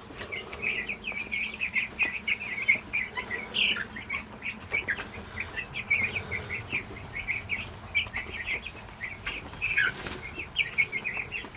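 A flock of about three-week-old Cornish Cross meat chicks peeping continuously, many short high chirps overlapping one another.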